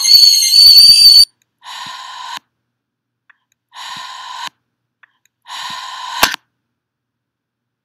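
A loud high-pitched whine that cuts off about a second in, followed by three shorter, quieter electronic buzzing tones about two seconds apart, the last ending in a sharp click.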